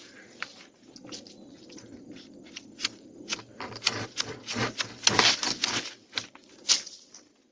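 Twigs and small branches snapping, cracking and rustling as a tree is trimmed: irregular sharp cracks, thickest about five seconds in, fading out near the end.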